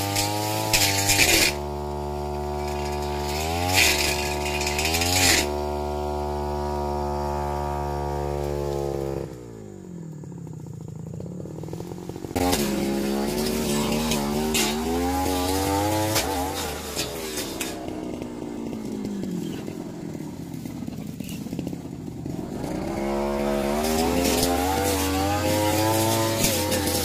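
Backpack petrol brush cutter's two-stroke engine revving hard as its blade cuts through weeds and brush, with harsh bursts where it bites into the growth. About nine seconds in the throttle is let off and the engine drops to a low idle, then it revs back up about three seconds later and keeps cutting, its pitch rising and falling with the throttle.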